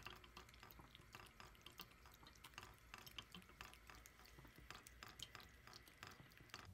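Faint trickle of a thin stream of tap water from a bathroom faucet falling into the sink and onto a drinking cat's head, with many small irregular drip-like splashes.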